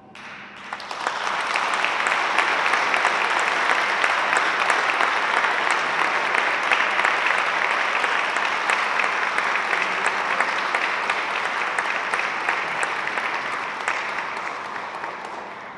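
Audience applauding, swelling over the first second, holding steady, then dying away near the end.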